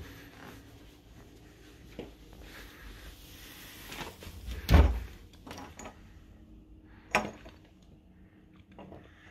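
A cupboard door being opened by its knob: a heavy thump about halfway through, then a sharp click about two and a half seconds later, with a few fainter knocks around them.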